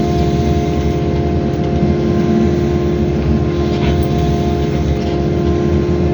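Excavator's diesel engine running steadily under load, with a constant hydraulic whine, as the bucket drags soil. There is a faint scrape about four seconds in.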